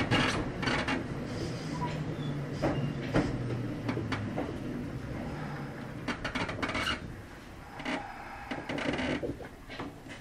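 Kintetsu 5800 series train standing at its terminus: a low hum fades out over the first few seconds, with scattered clicks and rubbing noises, growing quieter towards the end.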